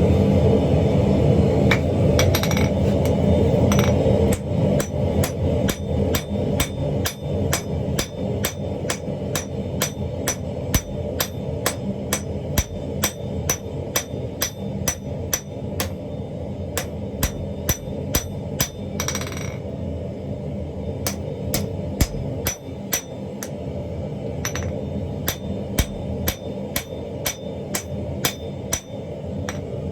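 Hand hammer striking hot chain Damascus steel on an anvil, blows landing at a steady pace of about two a second from about four seconds in, over a steady low rumble.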